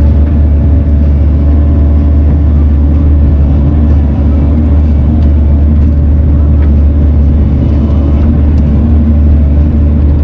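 Diesel engine of a compact Bobcat machine running steadily under a constant load, with a deep hum.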